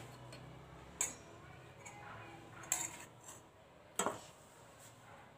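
A few light clinks and taps of kitchen utensils and dishes, four sharp ones spread across a few seconds, over a faint steady hum.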